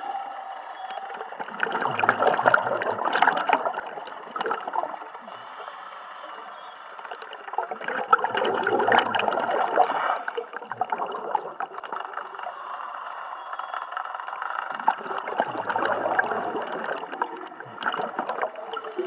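Scuba diver breathing on a regulator underwater: three long bursts of exhaust bubbles, about six seconds apart, with quieter stretches of inhaling between.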